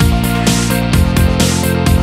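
Background music: an electronic track with a steady beat of about two strokes a second over sustained synth notes.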